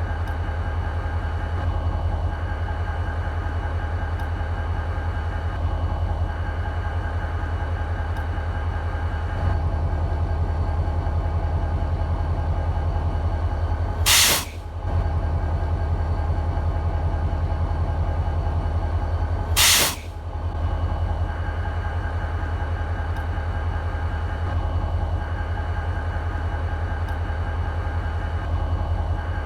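EMD SD40-2 locomotive's 16-cylinder two-stroke diesel idling with a steady, even rumble. About halfway through comes a short, loud burst of air hiss, and a second one follows about six seconds later.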